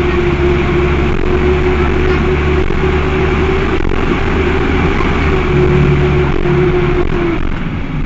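Cummins ISBe four-cylinder diesel of an Agrale MT12.0 LE midibus running under way, heard on board with its radiator fan engaged. That fan is typical of these Cummins engines, which tended to run hot. A steady whine sits over the engine hum and drops away near the end.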